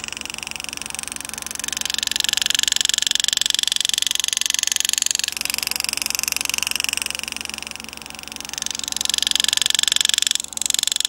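Pneumatic air graver (Lindsay engraving handpiece) running, its rapid hammering stroke driving the graver through a coin's surface as a fast buzz with air hiss. The pitch shifts several times as the cutting speed changes, with a short break near the end.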